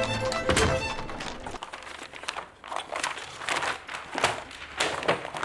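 Orchestral background music ends about a second and a half in. It is followed by a run of irregular paper rustles and small knocks as papers and objects are handled on a cluttered desk.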